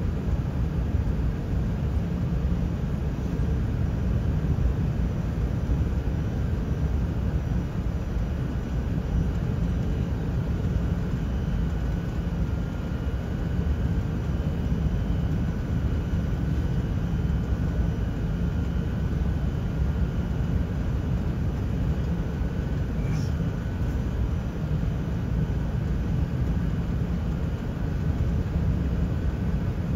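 Steady, unbroken cabin rumble of an Airbus A380 on final approach, airflow and engine noise heard from inside the cabin, with faint steady whining tones above the low roar.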